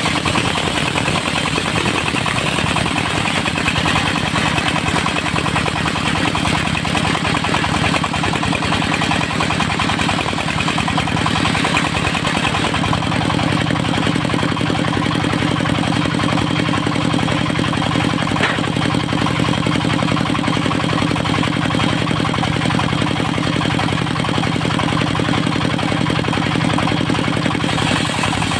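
Engine of a portable circular sawmill running steadily, with a dense rushing noise over its hum; the low engine note grows stronger about halfway through.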